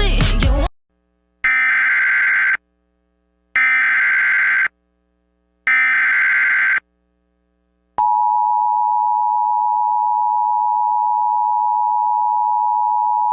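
Emergency Alert System tones: three buzzy digital SAME header bursts, each about a second long, then the steady two-tone EAS attention signal starting about eight seconds in. A brief tail of music ends just before the first burst.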